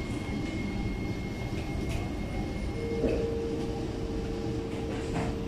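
Cabin noise inside an SMRT C751B metro train: the steady rumble of the running train, with a high steady whine that gives way, about three seconds in, to a lower steady hum.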